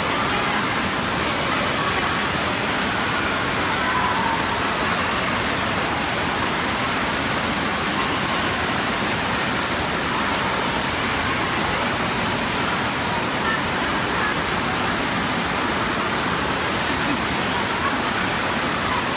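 Steady rush of splash-pad fountain jets spraying up and splashing down onto shallow water, with faint children's voices in the background.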